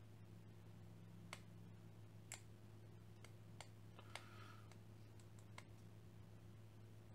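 Faint, scattered clicks and ticks of fingernails working at a small plastic kit part to peel off its protective film, about six over the few seconds, over a steady low hum.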